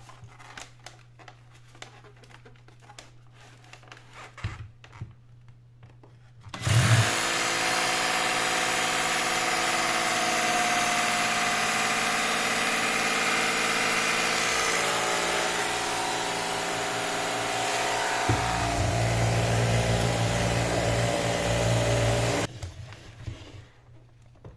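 Samsung VS20 stick vacuum cleaner switched on and running steadily for about sixteen seconds, motor whining high with a deeper hum joining in near the end of the run, then switched off.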